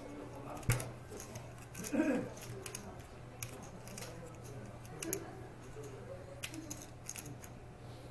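Irregular sharp clicks of poker chips being handled and knocked together at a card table, over a steady low hum.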